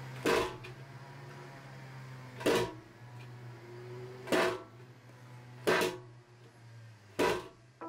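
A metal baking tray carrying a paper-lined cake tin of chocolate sponge batter dropped onto the table five times, about every one and a half to two seconds, each drop a sharp clatter with a brief metallic ring. The drops knock the air bubbles out of the batter before baking.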